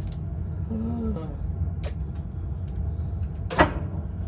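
Residential furnace blower fan running with a steady low rumble, with a few small clicks and one sharp crackle about three and a half seconds in.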